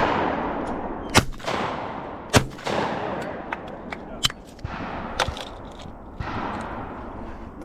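A string of shotgun shots fired at clay targets, several sharp reports a second or so apart, each trailing off in a long echo.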